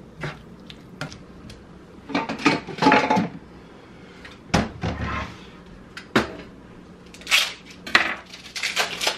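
Kitchen utensils clattering and knocking: a spatula stirring in a frying pan, then a metal box grater being handled and set down on the counter with a heavy knock about halfway through, followed by lighter knocks at a cutting board.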